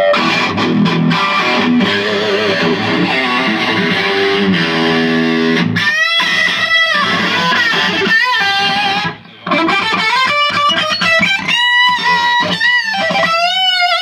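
Electric guitar (a Stratocaster) played loud through a Yerasov Bulldozer 50-watt EL34 tube amp head with the gain turned up, giving an overdriven tone. It opens with strummed chords and riffs, then moves to single-note lead lines with string bends and vibrato, with a brief break about nine seconds in.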